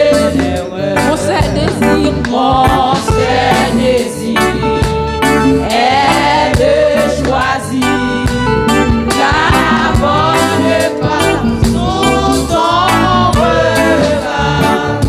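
Women singing a French hymn in praise-and-worship style, a lead singer with backing vocalists, over band accompaniment with a steady beat.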